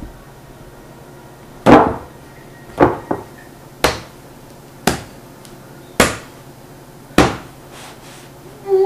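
Hands slapping down on a slice of bread on a wooden cutting board: six loud thumps, about one a second, with a lighter one just after the second.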